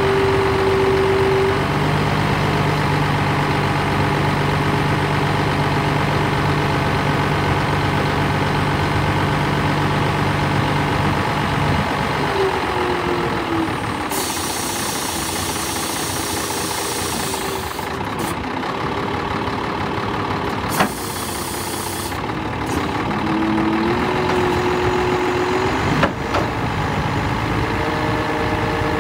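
Scania 124G's straight-six diesel running while its hooklift hydraulics swing the hook arm out. The steady running tone shifts pitch several times, with hissing stretches and two sharp clunks, about 21 and 26 seconds in.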